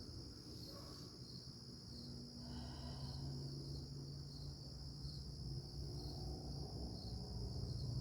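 Insect chorus, crickets or katydids, trilling steadily at a high pitch with a faint regular pulse.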